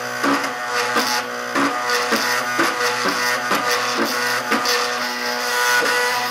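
Background music: guitar, with notes struck about twice a second over held tones.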